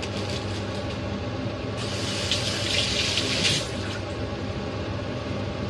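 A kitchen tap running for about two seconds, starting about two seconds in, over a steady low hum.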